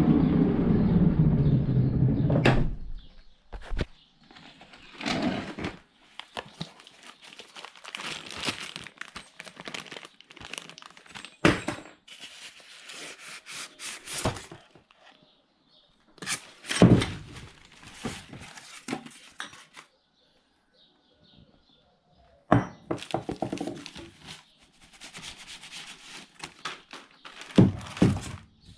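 A scooter engine running, which stops about two and a half seconds in. Then come irregular knocks, thunks and rustling of things being handled, with short pauses.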